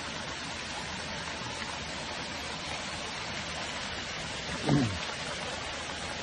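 A torrent of red wine rushing down a sloping street, a steady splashing rush of flowing liquid. A brief voice cuts in about three-quarters of the way through.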